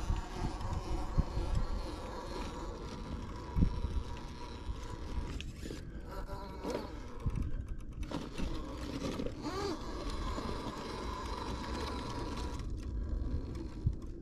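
Radio-controlled car's electric motor whining as it drives, its pitch rising and falling, over a low rumble of wind on the microphone and a few knocks.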